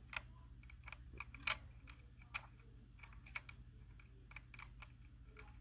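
Faint, irregular small clicks and taps of fingers handling a tiny screw and rubber grommet, setting the screw into a mounting hole on a drone's circuit board.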